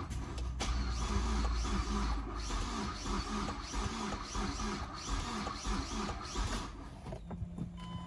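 Starter motor cranking the 2007 Mazdaspeed6's turbocharged 2.3-litre four-cylinder engine with an even rhythmic chug, without it catching: a crank-but-no-start condition. The cranking stops about seven seconds in.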